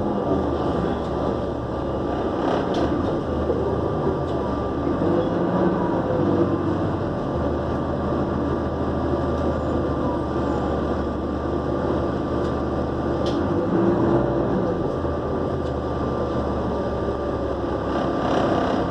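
Interior of a New Flyer D40LF diesel transit bus under way: a steady engine drone and road noise, with a thin, steady turbocharger whine above it.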